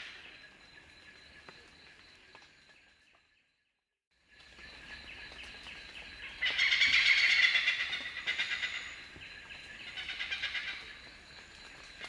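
Oriental pied hornbills calling: loud series of rapid, repeated 'kaek-kaek-kaek' cackling notes. The strongest burst comes about six and a half seconds in and a shorter one around ten seconds, after the sound cuts out completely for about a second just before four seconds in.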